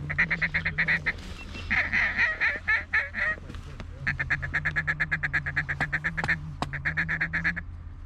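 A hand-blown duck call worked in a fast, even chatter of about ten notes a second, in four runs with short breaks, over a steady low hum: a feeding-chuckle call aimed at incoming ducks.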